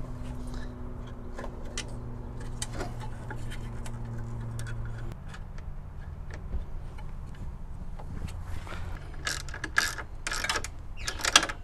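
Ratchet wrench clicking in short bursts near the end as it drives an M6 bolt and washer into the horn mounting on the radiator support. Before that come small handling clicks and knocks of the metal horn brackets, over a low steady hum that stops about five seconds in.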